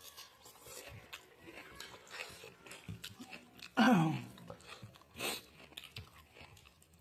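A person chewing and eating chicken curry, with many small mouth clicks and smacks. A short vocal sound falling in pitch about four seconds in is the loudest moment.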